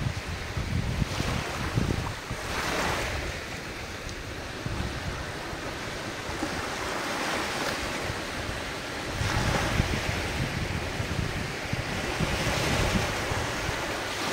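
Ocean surf washing onto the shore, swelling three times, with wind rumbling on the microphone.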